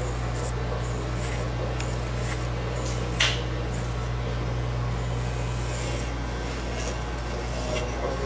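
Corded electric hair clippers with a guard attachment buzzing steadily as they are pushed through hair on top of the head, with a scratchy rustle of the blades and guard in the hair. A short sharp click about three seconds in.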